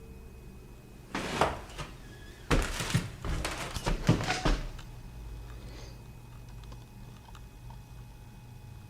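Wooden hatch and board being handled and shut: one thunk about a second in, then a quick run of several knocks and scrapes of wood on wood, over a faint steady low hum.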